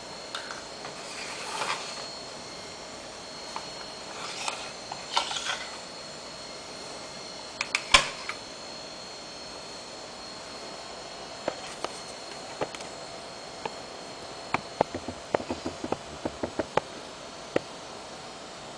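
IBM Travelstar 20GB laptop hard drive running with a steady high-pitched whine, the abnormal 'jii' buzz it gives off. Scattered clicks sit over it, the sharpest about eight seconds in, with a run of quick clicks in the second half.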